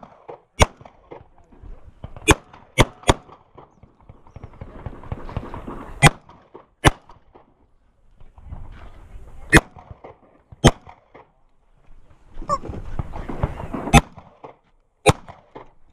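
Semi-automatic pistol firing about ten shots at close range, some of them in quick pairs and others spaced a second or more apart.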